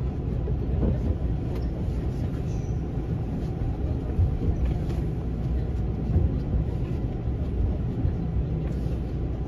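Running noise inside a JR West 283 series limited-express car as it rolls slowly into a station: a steady low rumble with a few faint clicks.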